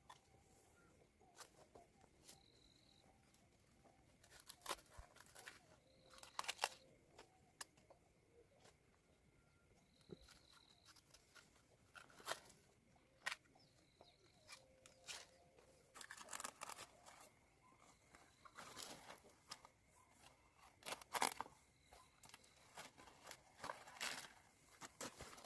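Tomato vines being handled as tomatoes are picked by hand: stems snapping and leaves rustling in scattered short crackles, quiet at first and busier in the second half. A few faint, short, high whistles sound between them.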